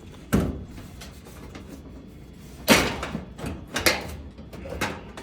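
Range's sheet-metal back panel being lifted and worked loose from the edge that holds it: a series of about five metallic knocks and rattles, the loudest about two and a half seconds in.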